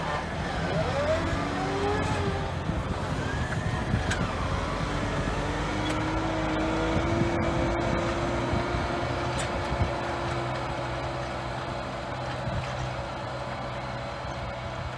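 New Holland T6.165 tractor's diesel engine running steadily under load as it pulls a disc harrow through ploughed soil, with a steady whine in the middle. The sound fades a little toward the end as the tractor moves away.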